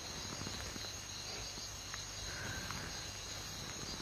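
Crickets chirping steadily in a high, even insect chorus over a faint background hiss.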